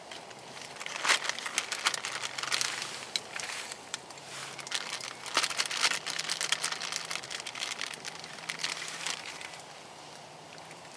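Plastic zip-top bag crinkling and rustling in irregular bursts as raw marinated chicken tenders are pulled out of it by hand.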